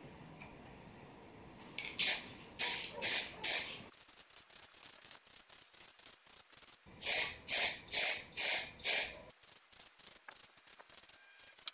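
Aerosol spray-paint can spraying a small wooden block in short bursts: a quick run of about four puffs around two seconds in, then five more around seven seconds in.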